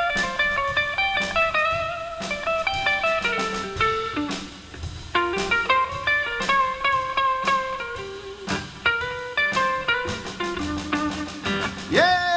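Blues guitar solo: a run of single-note lines and short phrases in a slow blues, played between sung verses.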